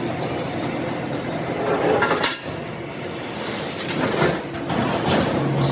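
An engine idling steadily, with a few short metallic knocks over it.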